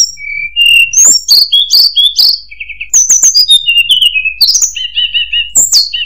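Hill blue flycatcher (tledekan gunung) singing: a fast, varied run of high whistled notes, slurs and sharp chips, ending in a quick repeated trill about five seconds in.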